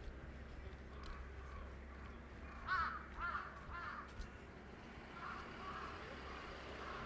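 Crow cawing three times in quick succession, with fainter calls following near the end.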